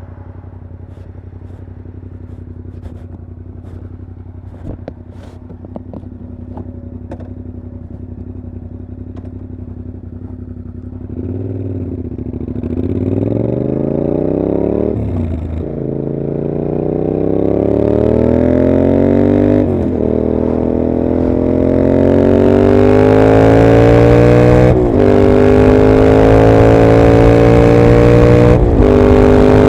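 A 2021 Yamaha MT-07's parallel-twin engine through a Mivv GP exhaust, idling steadily with a few light clicks. About a third of the way in it pulls away and accelerates up through the gears: the pitch climbs in each gear, with a brief dip at each of four upshifts, and it gets louder throughout.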